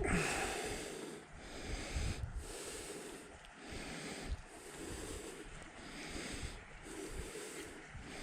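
A person breathing close to the microphone, soft and rhythmic at about one breath a second, with faint rustling and light thumps between breaths.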